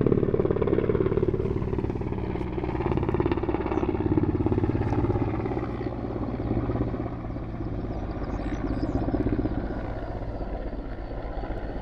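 Mi-8 military helicopter flying low overhead: a steady, loud rotor and turbine drone with a rapid pulsing beat, easing off a little in the second half as it circles away.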